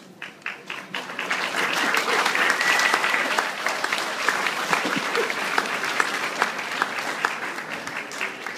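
Audience clapping, building over the first couple of seconds and thinning out toward the end.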